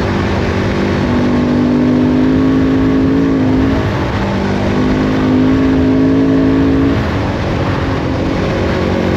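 Husqvarna 701's single-cylinder engine running steadily under way, its pitch dipping briefly about four seconds in and falling away about seven seconds in, over a steady rush of wind noise.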